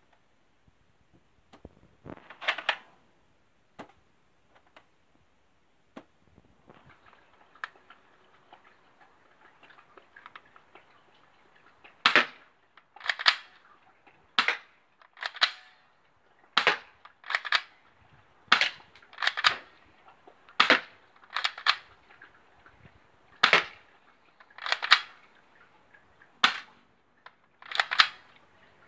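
Toy BB rifle being fired: a few scattered clicks at first, then a steady string of sharp pops about one a second from about halfway through.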